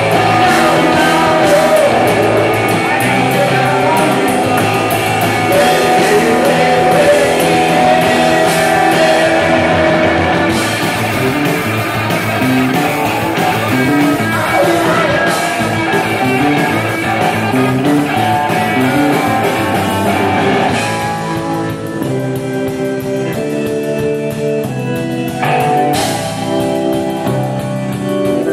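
A live rock band plays: electric guitars, bass and drum kit, with a singer. About twenty seconds in the full band thins out to sparer, held guitar notes.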